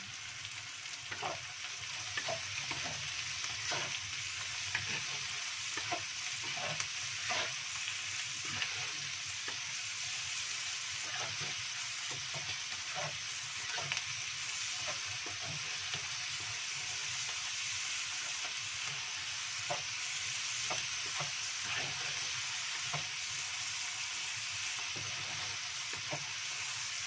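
Shallots and petai beans stir-frying in oil in a non-stick wok with a steady sizzle while they cook down to wilt, with a wooden spatula scraping and knocking against the pan in irregular strokes about once a second.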